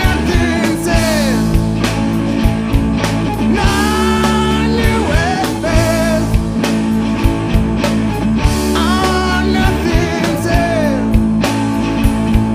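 Rock band music: drums, bass and guitar, with a lead melody that bends in pitch.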